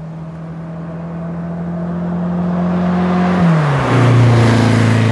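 The Abarth-tuned inline four-cylinder engine of a 1965 Fiat Abarth 1000 OT Spider running as the car approaches and drives past close by, getting steadily louder. About three and a half seconds in, the engine note breaks briefly and drops sharply in pitch, as in a shift up, and the car is loudest just after, with tyre and wind hiss, as it passes.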